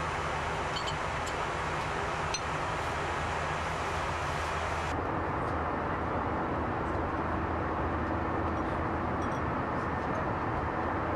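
Steady Airbus A320 cockpit noise: a constant rush of air with a low hum and a few faint ticks. About five seconds in the sound changes abruptly, the hiss dulling and a steady tone coming in.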